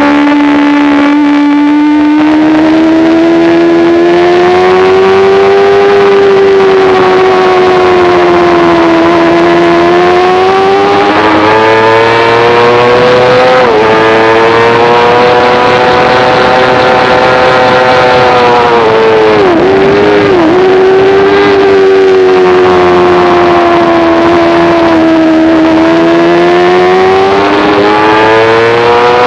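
Onboard sport motorcycle engine at high revs on a racetrack, its pitch rising and falling through the corners, with quick sharp drops in pitch as it shifts gear, twice about two-thirds of the way through and again at the end.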